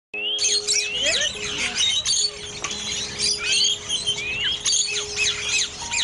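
A dense chorus of small birds chirping and twittering, with many quick rising whistled notes, over a steady low sustained tone.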